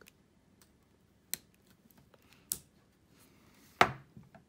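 A few sharp, separate plastic clicks and taps from a plastic pry tool working the locking latch of a laptop's ribbon-cable connector, with a louder knock near the end.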